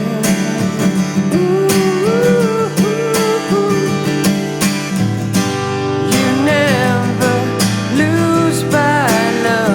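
Music: an acoustic indie rock song, with acoustic guitar carrying the chords and a gliding melody line above it.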